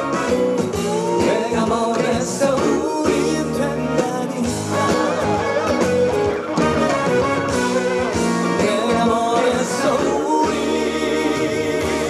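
Male trot singer performing a song live: a sung vocal line with strong vibrato over a full band accompaniment with guitar.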